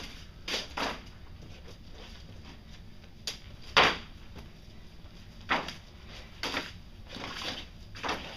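A rabbit moving about on a hard floor, making irregular short knocks and scuffs, about eight in all. The loudest comes about four seconds in.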